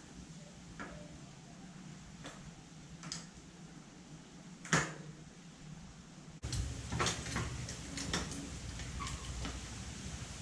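Scattered metallic clicks and knocks of a bicycle wheel being handled and fitted back onto the frame, the loudest knock a little before halfway. About six seconds in the background turns to a steady rush with further clicks.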